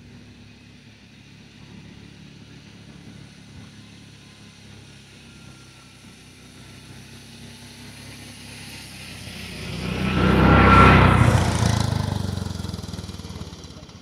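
A motor vehicle's engine running. It grows louder to a loud peak about eleven seconds in as it passes close by, then fades away.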